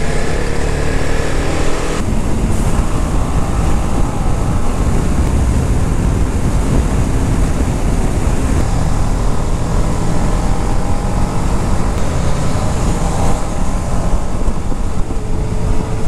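Motorcycle engine running at road speed, with wind rushing over the rider's microphone; the engine note rises in places as it accelerates.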